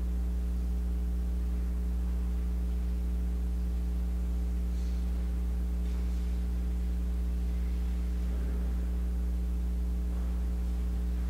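Steady electrical mains hum, a low buzz with a ladder of fainter overtones, unchanging throughout.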